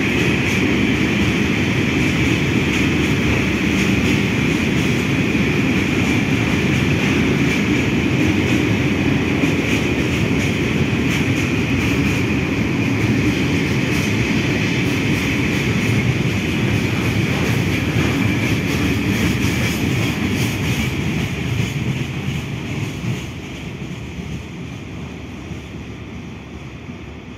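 Freight wagons loaded with wire rod coils rolling slowly along the rails, a steady rumble with a high-pitched whine over it, fading away from about 23 seconds in.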